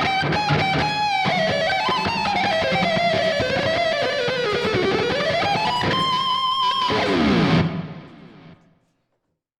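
Electric guitar music: a lead line that bends and slides down, climbs back up and ends on a held high note over a full backing. It then stops abruptly and fades out, leaving silence.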